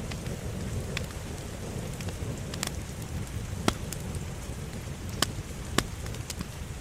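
Wood fire crackling in a fireplace: a steady low rush of burning with scattered sharp pops, the loudest a little past halfway and two more about half a second apart later on.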